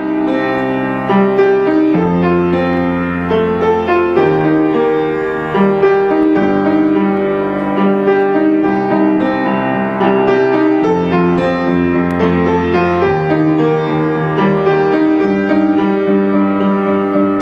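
Grand piano played solo: chords and melody notes over held bass notes, with the bass changing every couple of seconds.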